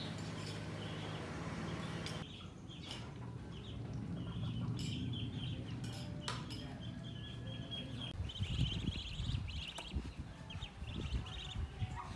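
Birds chirping in quick runs of short, high chirps. A low hum stops abruptly about two seconds in, and a low rumble comes and goes in the second half.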